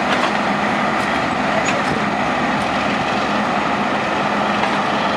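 Steady diesel train noise: the GEU 40 diesel-electric locomotive's engine running continuously, with a faint steady hum and a few light ticks.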